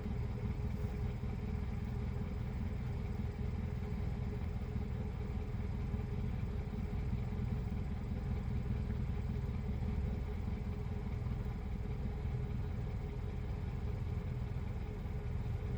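Steady low engine rumble, like a vehicle idling, running evenly with a faint steady hum above it.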